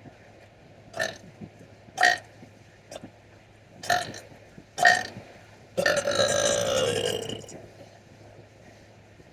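A person burping: five short burps about a second apart, then one long drawn-out burp of about a second and a half, over a steady low hum.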